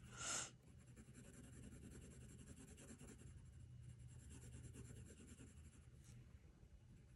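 Faint scratching of a Blick Studio colored pencil shading orange over a layer of red on paper, with one brief louder hiss just after the start.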